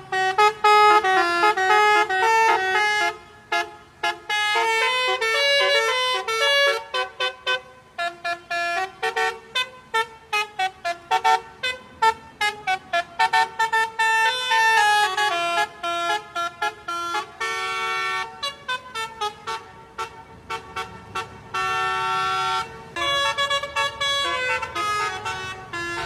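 A lorry's multi-note telolet air horn playing a tune: quick staccato toots of changing pitch through the middle, then longer held notes, chord-like, near the end.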